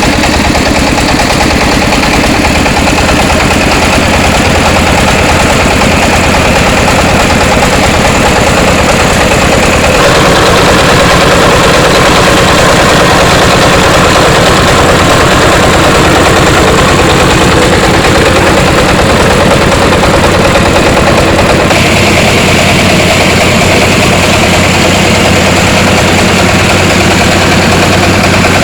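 Engine of a three-wheeled mobile rice huller running steadily and loudly, its tone shifting slightly about ten seconds in and again a little after twenty seconds.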